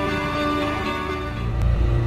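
Background music of sustained held tones, with a deep bass coming in about a second and a half in.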